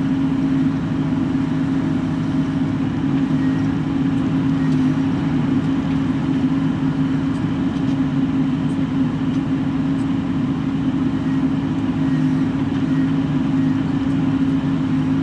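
Bobcat E42 mini excavator's diesel engine running steadily, heard from inside the cab, with a constant low hum.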